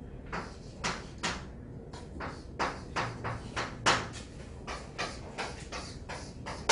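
Chalk drawing on a chalkboard: a quick, even run of short scratchy strokes and taps, about two to three a second.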